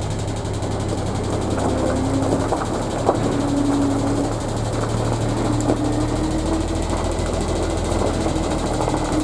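Diesel heavy equipment engine running steadily, with a hydraulic whine that shifts a little in pitch and scattered clanks and knocks.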